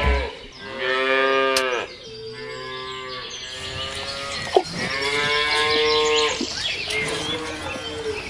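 Cows mooing: several long moos, loud ones about a second in and again around five to six seconds, with softer moos between and near the end. A single short click falls between them.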